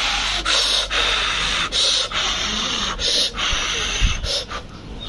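A person eating and breathing noisily through the mouth close to the microphone, a quick series of short hissing breaths. A soft thump comes about four seconds in.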